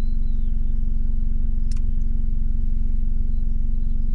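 Ford Fiesta ST Mk8's 1.5-litre three-cylinder turbo engine idling steadily through a valved Scorpion cat-back exhaust with the GPF deleted, heard from inside the cabin with the windows down.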